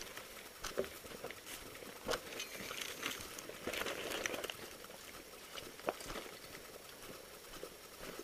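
Footsteps and the rustle of clothing and tactical gear close to a head-mounted camera, with scattered knocks and clicks.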